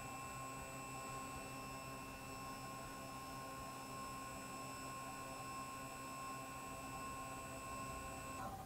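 Faint, steady whine of a CNC router's Z-axis drive as the spindle head lowers slowly to index off a touch-off pad: several high steady tones over a low hum. It cuts off abruptly near the end as the tool touches the pad and the axis stops.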